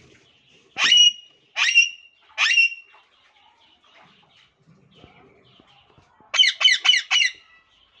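Alexandrine parakeet calling: three loud, harsh calls about a second in, then a quick run of four more near the end.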